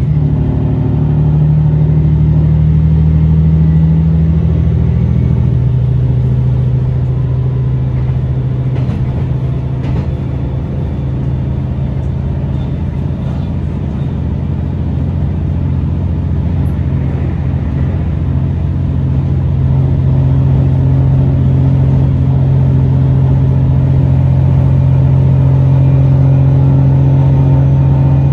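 Diesel engine of a Tosa Kuroshio Railway 9640 series railcar droning steadily under the cabin floor as the train runs. Its pitch drops a little about six seconds in, and it grows louder again from about twenty seconds.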